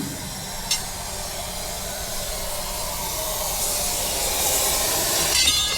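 Air hissing steadily out of a semi truck tire through the valve stem with its core removed as the tire deflates. There is a short click about a second in and some light metal clinking near the end.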